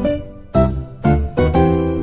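Background music: a tune of struck notes and chords, a new one about every half second.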